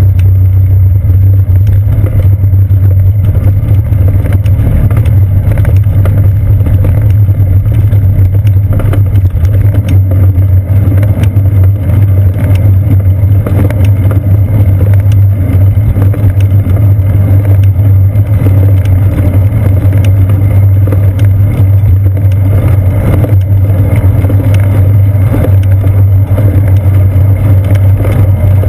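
Loud, steady low rumble of a bicycle in motion, picked up through a seat-post-mounted GoPro Hero 2 camera, with scattered light ticks and rattles.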